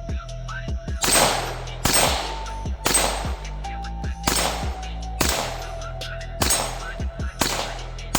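Handgun shots fired one after another, about eight at slightly uneven intervals of roughly a second, over a hip-hop music track with a steady beat and bass line.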